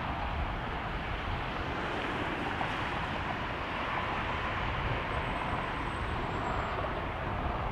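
Jet airliner engines running, a steady wash of noise with a faint whine, over wind buffeting the microphone.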